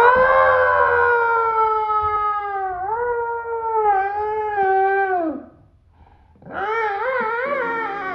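Drawn-out howling voice, processed by a voice-changer app: one long howl lasting about five seconds that wavers in pitch in its second half, then after a short gap a second howl with a quick wobbling pitch.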